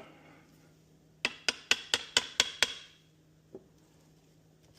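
Seven quick, light hammer taps on metal, about five a second, each leaving a brief ring. They are tapping a pin wrench's pins into the holes of a hydraulic cylinder's gland nut.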